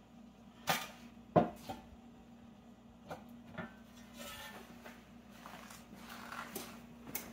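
Stainless steel fish cooker pan and lid being handled: two sharp metal clanks about a second in, then lighter knocks and soft scraping as the lid is lifted off. A faint steady hum runs underneath.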